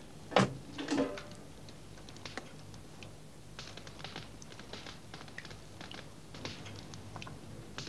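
Wood fire crackling in a hearth under a hanging cooking pot, faint irregular pops and ticks that thicken in the second half. A short metal clank near the start as the pot is hung on its hook.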